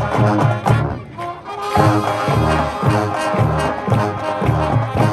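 High school marching band playing: a full brass section with strong low brass notes hit on a steady beat about twice a second, over drums.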